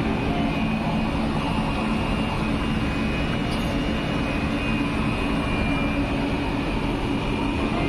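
Stationary ICF MEMU electric train with its pantograph raised, its underfloor electrical equipment running: a steady hum and blowing noise with a thin high whine over it.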